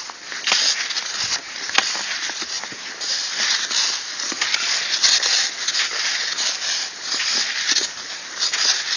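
Cross-country skis swishing and crunching over packed snow in a steady striding rhythm, with pole tips planting in the snow.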